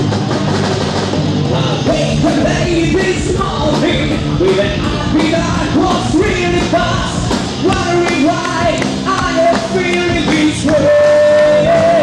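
Live rock band playing through the PA: electric guitars and drums, with a sung vocal line coming in a couple of seconds in and ending on a long held note near the end.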